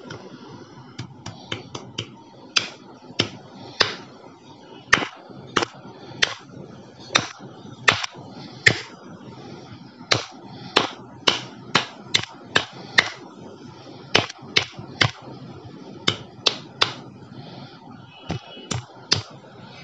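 Hands clapping sharply and irregularly, roughly two claps a second, some much louder than others, over a faint steady hiss.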